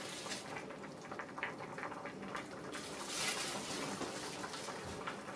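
Pot of tomato and palm-nut sauce simmering, with faint bubbling and crackling.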